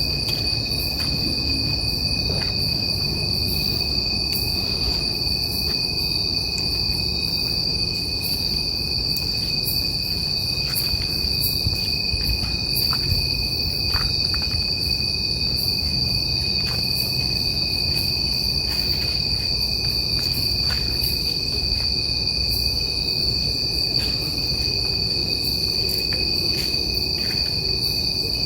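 A chorus of night insects trilling steadily, one continuous high-pitched tone with a lower second tone beneath it. A low rumble runs underneath.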